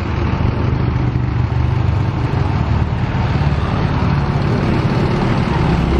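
Diesel engine of a Mercedes-Benz high-deck coach running with a steady low hum. The owner says this engine is still down on power on climbs.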